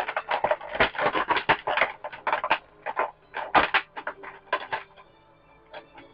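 Irregular plastic rustling and clicking from handling an action figure and its packaging, busiest in the first few seconds and thinning out toward the end.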